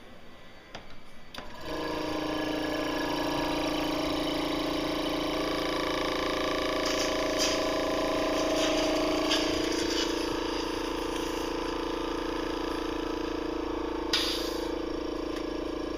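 Cough assist (mechanical insufflation–exsufflation) machine's blower starting up and running with a steady hum, its pitch shifting about eight to ten seconds in as the pressure changes, with a sharp click near the end.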